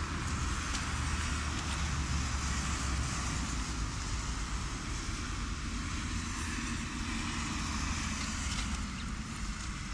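Car traffic on a wet street: a steady tyre hiss over a low engine rumble, the rumble easing about three seconds in.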